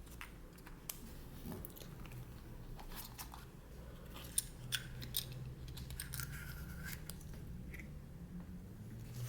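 Faint clicks, crinkles and small snaps of hands unwrapping a foil-wrapped chocolate surprise egg and working its plastic toy capsule, with a brief plastic squeak about six seconds in.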